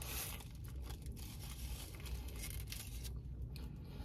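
Faint rustling and crinkling of food packaging being handled, over a low steady rumble.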